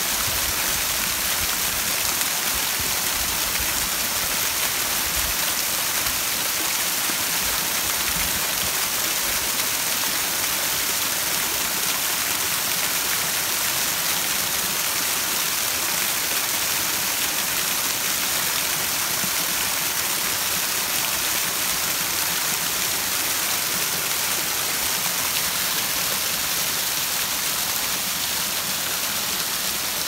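Small mountain-spring waterfall: thin streams of water falling over a mossy rock face and splashing onto rocks and a pool below, a steady, even rushing splash.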